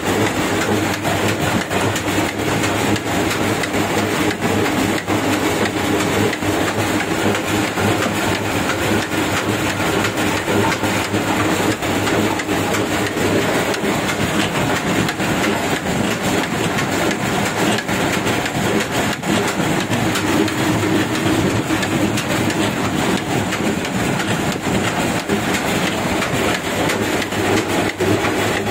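Oil expeller (screw press) running steadily under load, oil pouring from its press cage. It makes a constant mechanical clatter with rapid fine ticking over a low hum.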